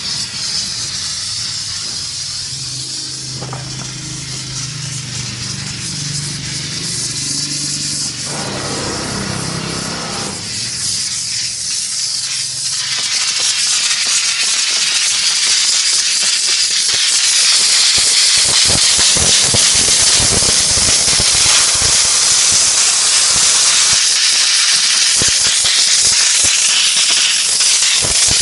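LPG-fired mobile steam car wash machine hissing with steam, growing louder about halfway through and then holding steady and loud. A low hum sits under the hiss for the first several seconds.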